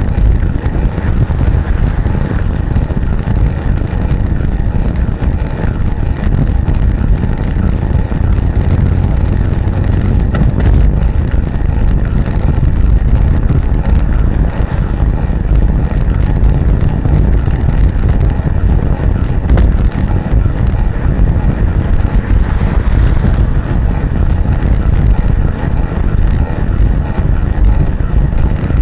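Loud, steady wind and road rumble on the microphone of a camera mounted on a recumbent bicycle riding fast along a paved road.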